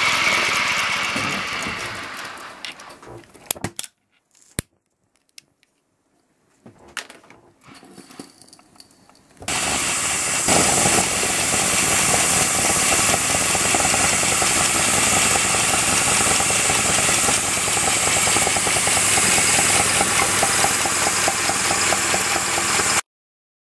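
Aster BR 52 live-steam model locomotive running fast on a rolling test stand: a steady hiss of steam exhaust with rapid beats and mechanical rattle, cutting off suddenly near the end. Before it, a loud hiss fades over a few seconds, followed by a few clicks and a spell of near silence.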